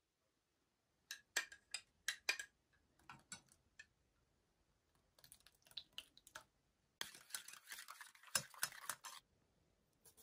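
A metal spoon clinking against a cup and an enamel bowl in a few sharp taps, then scraping thick sour cream out of its cup, with more clinks, for about two seconds near the end.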